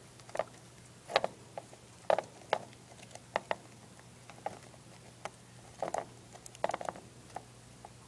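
Dwarf hamster gnawing on a carousel chew toy: irregular sharp clicks and crunches, some in quick clusters, over a low steady hum.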